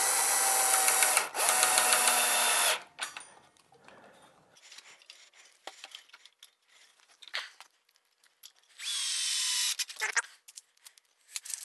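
Milwaukee cordless drill driving stainless steel screws through a copper plumbing strap into wood. It runs steadily for nearly three seconds with a brief let-off about a second in, then after a spell of small handling clicks it runs again for about a second near the end.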